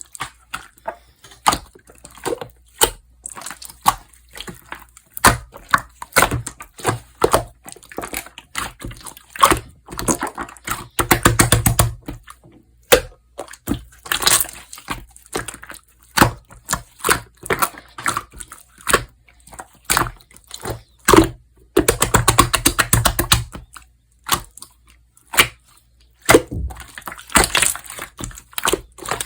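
Slime being squeezed and pressed by hand, giving irregular sticky clicks and pops. There are two longer runs of dense crackling, about eleven and twenty-two seconds in.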